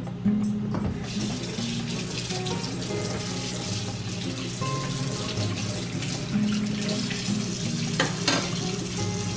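Water running from a tap: a steady rush that starts about a second in and stops near the end, with two knocks shortly before it stops. Background music plays underneath.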